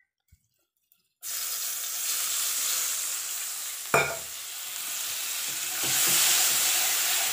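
Spice masala sizzling in hot oil in a kadai while being stirred with a spatula. The sizzling starts suddenly about a second in after near silence, with one sharp knock about four seconds in, and grows louder from about six seconds.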